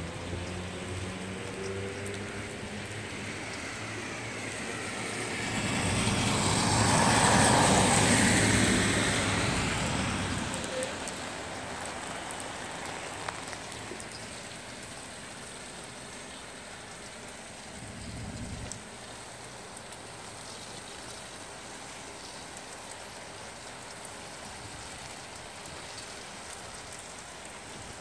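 Steady rain falling on pavement, with a car passing on the wet street: its tyre hiss swells and fades over several seconds. A brief low rumble from another vehicle cuts off later on.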